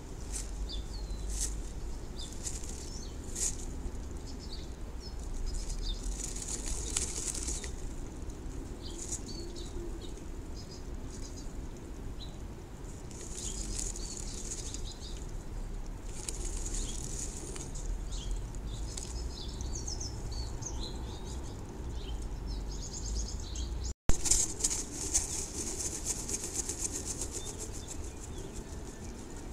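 Female bluebird shifting on her eggs inside a wooden nest box: her wings and the dry grass nest rustle in scratchy bursts as she settles and turns the eggs. A low rumble runs underneath, and a single sharp knock comes late on, the loudest sound.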